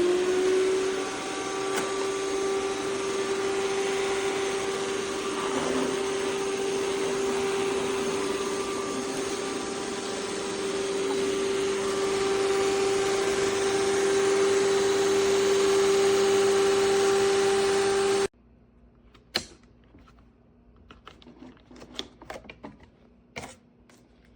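iRobot Roomba 405 robot vacuum running, its suction fan giving a steady whine over a rushing noise after rising in pitch as it spins up. The sound cuts off suddenly about three-quarters of the way through, leaving a few faint clicks and knocks.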